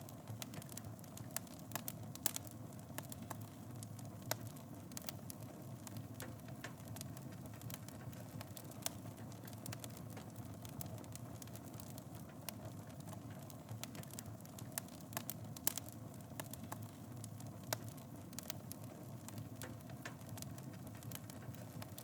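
Wood fire in a fireplace crackling, with irregular sharp pops over a steady low rush of the flames.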